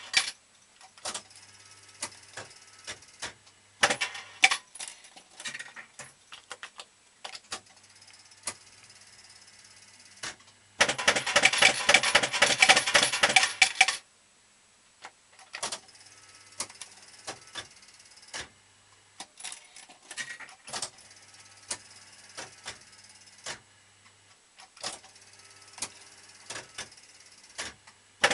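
Super Nudge Gambler 2 fruit machine being played: scattered mechanical clicks of the buttons and reels stopping, with a low hum that comes and goes in stretches. About eleven seconds in, a loud three-second clatter of rapid metallic clicks.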